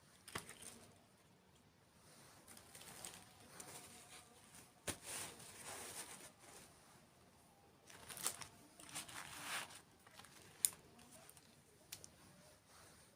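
Faint crinkling and rustling of dessert food and packaging being handled and eaten, in several bursts, with a few sharp clicks, the loudest near the end.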